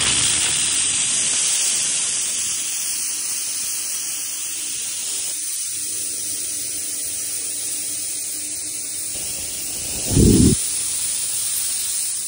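Steam hissing steadily from the spray gun of a Fortador Pro Max steam cleaner running at 20 bar, with a brief low thump about ten seconds in.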